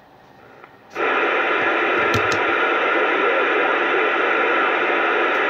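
CB radio receiving on AM: about a second in, a steady loud rush of static breaks in as the receiver picks up an incoming signal, and it hisses on with no voice in it. A couple of brief pops come through about two seconds in.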